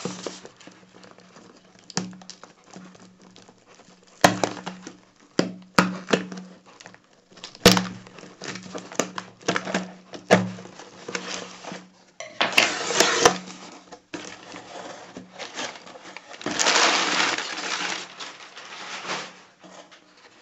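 Packing tape being slit with a small knife and pulled off a cardboard shipping box, with the cardboard flaps knocking and scraping as they are opened. Sharp irregular clicks throughout, and two longer rasping tears of tape or cardboard about twelve and sixteen seconds in.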